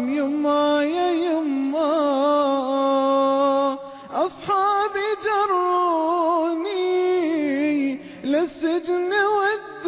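An a cappella nasheed with a vocal substitute for instruments: voices hold long, ornamented notes with wavering pitch. Two quick rising vocal swoops come about four and eight seconds in.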